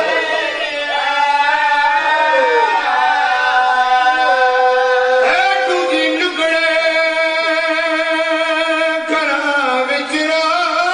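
A man singing a slow, drawn-out melodic line into a microphone in the sung verse style of a zakir's majlis recitation. He holds long notes with vibrato, with pitch glides between them and a drop to a lower held note about six seconds in.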